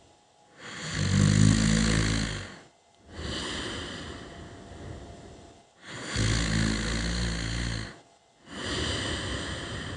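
A sleeping person snoring: two slow breaths, each a loud, low, rattling snore on the in-breath followed by a quieter, breathy out-breath.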